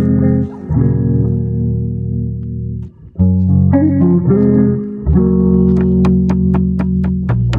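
Background music with sustained low bass notes, a brief drop about three seconds in, and a steady ticking beat that comes in near the end.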